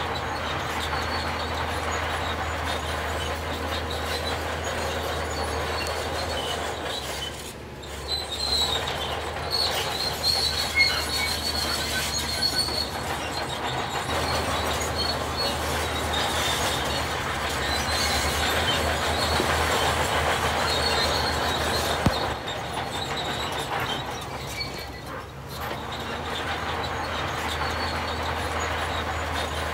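Heavy machinery running steadily, with high metallic squeals over the engine noise. The sound dips briefly twice, and there is one sharp click.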